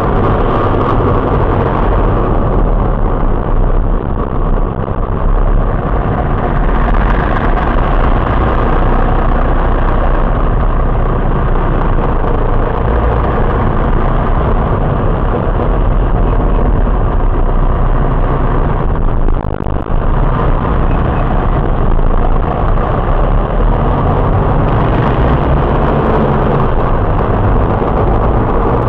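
Steady road and engine noise inside a moving car, picked up by a dashcam's built-in microphone: a constant low rumble with tyre noise over it.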